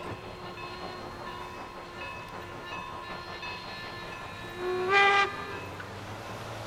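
Steam whistle of Strasburg Rail Road 4-8-0 No. 475 giving one short blast about five seconds in, over the steady rumble of its passenger train rolling away on the curve.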